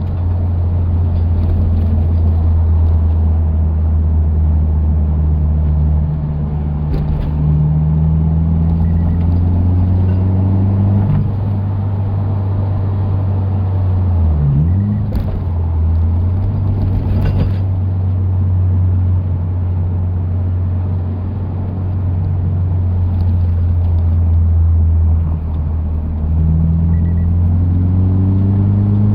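Toyota 86's flat-four engine heard from inside the cabin through a BE FREE aftermarket exhaust with its silencer fitted: a deep steady drone under load on the move. The pitch climbs twice as the revs rise and drops sharply once about halfway through. Wind noise through the open windows and a few short rattling clicks sit over it.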